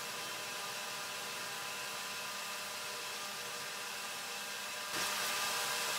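Steady hiss with a faint underlying hum and no distinct events; it steps up slightly and evenly about five seconds in.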